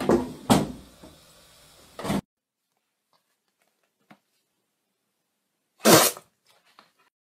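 A single short, loud fart sound about six seconds in, coming out of near silence. In the opening two seconds there are a few sudden noises, and then the sound cuts off abruptly.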